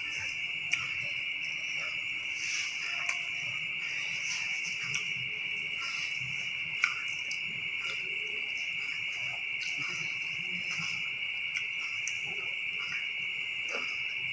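A steady high-pitched trill in the background, with a few light clicks and soft eating sounds as fried rice and fried chicken are eaten by hand from a plate.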